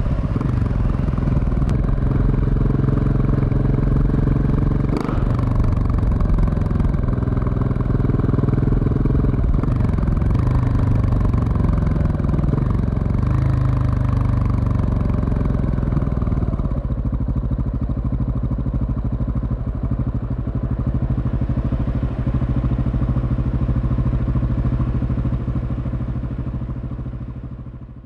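KTM 690 SMC R single-cylinder engine through an aftermarket Leovince SBK exhaust while riding, its pitch rising and falling several times as it revs and eases off. For the last third it holds a steadier, lower note, then fades out at the end.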